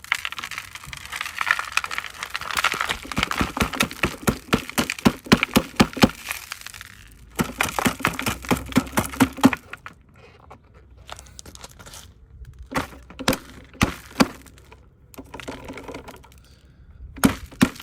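Dry grit and dirt being dumped and shaken out of a vacuum canister: a dense crackling patter of particles in two runs over the first nine seconds or so, then scattered clicks and crackles as the last of it falls out.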